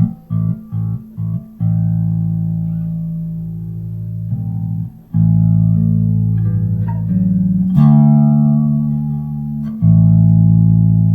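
Electric bass guitar played clean through a Boss flanger pedal: four or five short plucked notes, then long notes left to ring, changing a few times.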